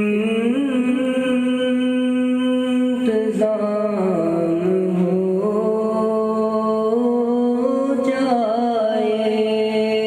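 A young man singing a naat, a devotional poem in praise of the Prophet, solo with no instruments. He holds long notes that step from pitch to pitch, with ornamented runs near the start and again about eight seconds in.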